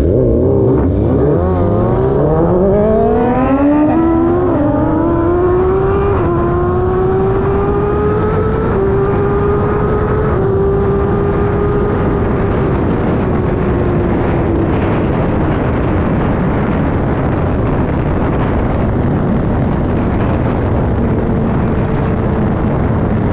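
A tuned Suzuki GSX-R1000R inline-four accelerating hard from a standing start. The engine note climbs steeply for several seconds with a couple of brief steps, then holds high. Wind rush over the chest-mounted microphone grows until it covers the engine for the second half.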